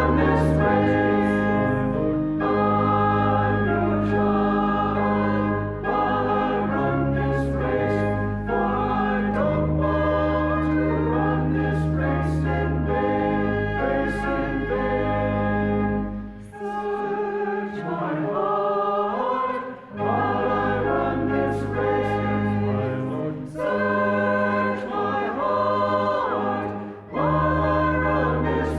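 Choir singing church music with organ accompaniment, in sustained chords over long-held bass notes, pausing briefly between phrases.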